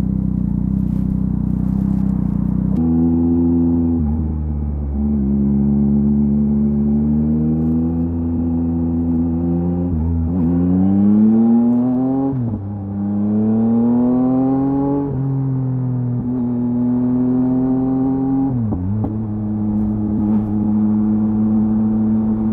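2023 Yamaha MT-09's three-cylinder engine through a LeoVince LV Race full exhaust under way. It holds steady revs for a long stretch, then pulls hard with the pitch rising, drops sharply on an upshift about halfway through, rises again, and settles into a steady cruise with a brief dip in revs near the end.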